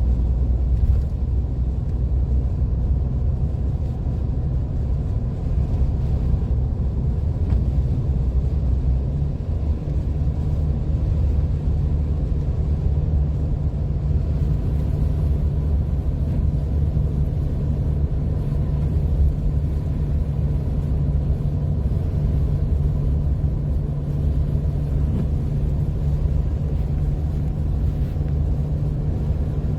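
A car driving on a snowy road, heard from inside the cabin: a steady low rumble of engine and tyres.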